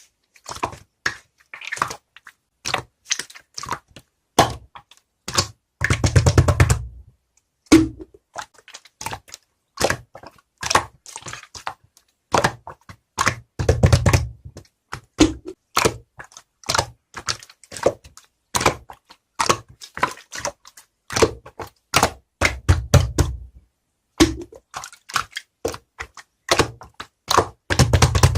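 Close-miked eating sounds: a steady run of short, sharp clicks and crunches, with longer, denser crunching bursts about every eight seconds.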